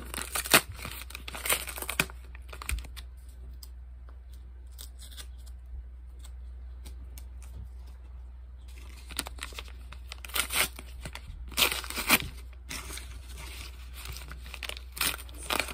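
A small wrapped package being torn open and crinkled by hand, in bursts of tearing and rustling. There is a quieter pause in the middle, then more tearing.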